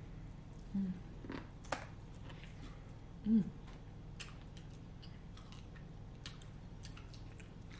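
Close-up eating sounds: biting and chewing corn on the cob and shrimp, with scattered wet mouth clicks and crunches. Two short low voice blips, the louder about three seconds in.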